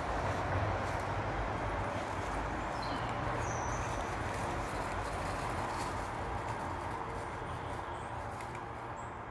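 Rustling and crunching through deep dry fallen leaves over a steady noise, with a couple of faint bird chirps about three seconds in.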